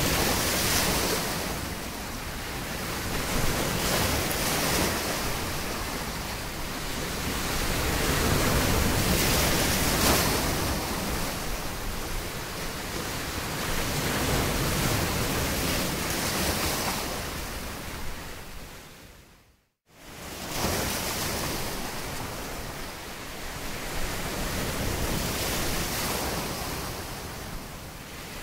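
Ocean surf washing in, a steady rush of water that swells and recedes every few seconds. About two-thirds of the way through it fades away to silence for a moment, then comes straight back.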